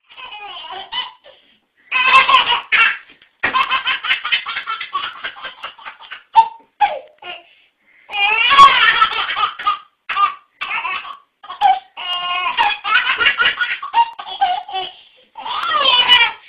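Baby laughing hard in repeated fits of belly laughs, high-pitched, with short breaks between the bouts.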